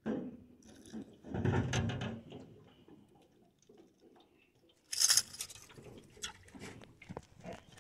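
A hooked peacock bass splashing at the surface beside the boat as it is brought in and lifted out, with a sharp splash about five seconds in, then light knocks and clicks of the fish and tackle being handled.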